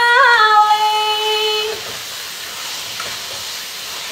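A woman singing, holding one long note that stops about two seconds in, followed by a steady faint hiss.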